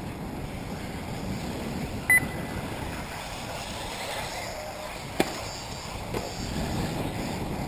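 Wind rushing over the microphone, with a short high electronic beep about two seconds in and a sharp click about five seconds in.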